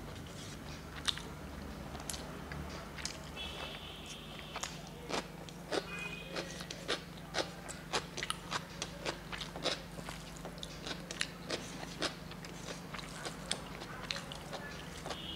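Close-up chewing of rice and fried leafy greens: many short, irregular crisp clicks and crunches, coming thickest through the middle of the stretch, over a steady low hum.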